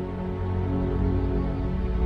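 Slow background music of long, held instrumental notes, with the low notes swelling slightly near the end.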